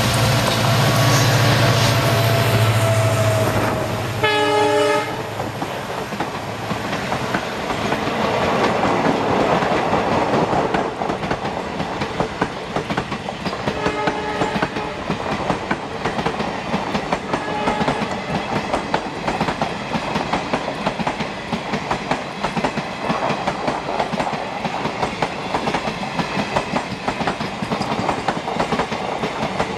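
Diesel locomotive passing close by with a deep engine drone, then a short horn blast about four seconds in. The passenger coaches follow with a steady clickety-clack of wheels over the rail joints, and fainter horn sounds come twice further on.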